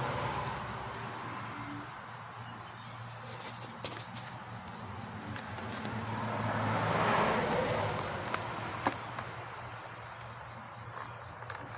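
Outdoor background of insects droning steadily in a high constant buzz. About halfway through, a broad swell of noise rises and falls over a few seconds, and there are a few light clicks from a small cardboard box being handled.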